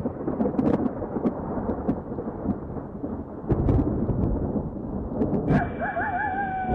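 Thunder rumbling with rain, a steady low rumble with scattered sharp crackles. About five and a half seconds in, a wavering high tone begins and settles into a long, slowly falling note.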